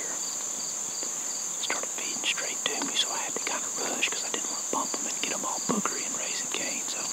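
Steady high-pitched drone of crickets and other insects, with another insect chirping in a regular pulse about four times a second. Soft, irregular ticks and rustles are heard through the middle.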